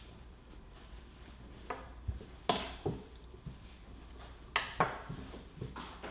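A few scattered light clicks and taps of small things being handled and set down on a tabletop, over a low steady hum.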